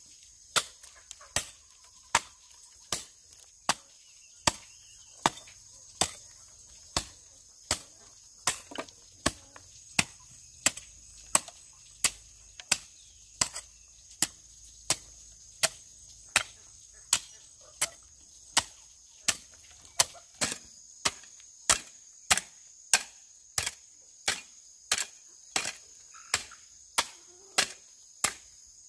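Metal hoe blade chopping into hard, dry, clumpy soil in a steady rhythm of sharp strikes, a little more than one a second. A steady high insect drone runs behind it.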